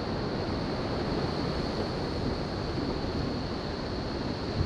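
Steady wash of sea and surf breaking against the rock cliffs, mixed with wind rumbling on the microphone.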